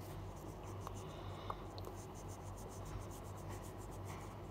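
Faint, rapid scratching strokes of a colouring pen on velvet paper, several a second, stopping about a second before the end, over a low steady hum.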